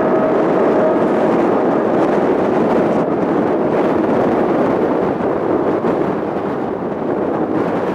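Boeing 777-300ER climbing away after takeoff, its twin GE90 jet engines making a loud, steady rumble. The rumble slowly fades from about five seconds in as the aircraft moves away.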